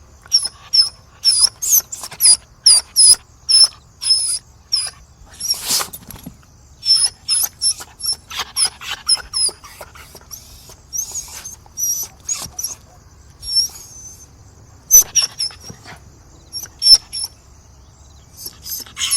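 Dog whimpering and whining to beg: runs of short, high-pitched squeaks, two or three a second, broken by short pauses.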